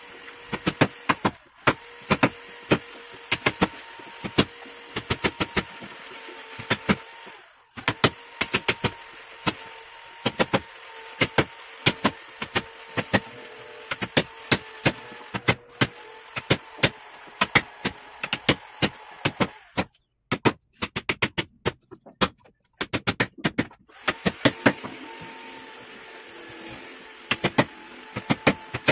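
Wood chisel being struck again and again to cut into a timber: sharp knocks in quick runs of several a second, broken by short pauses, over a faint steady hum.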